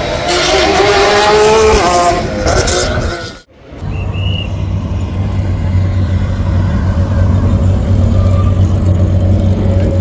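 Porsche 911 RSR flat-six racing engine at high revs as the car passes, its note falling near the end of the pass. After a sudden cut, another 911 RSR's engine idles steadily with a low, even note.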